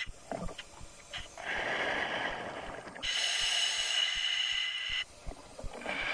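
Scuba diver breathing underwater through a full-face-mask regulator: rushes of hissing air and bubbling come in cycles a few seconds apart, with quieter gaps just after the start and about five seconds in.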